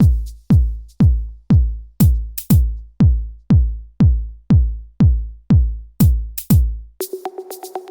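Electronic dance music with a heavy bass-drum beat at about two kicks a second and crisp high ticks. About seven seconds in the beat drops out, leaving a steady held synth tone with light ticks.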